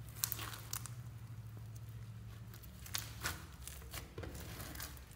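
White fluffy slime topped with glitter being pressed and stretched by fingers, giving irregular crackling clicks and crinkles.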